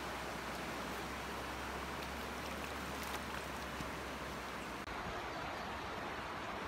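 Steady rush of a fast-flowing stream. About five seconds in the sound shifts abruptly to the flow of a different, wider river.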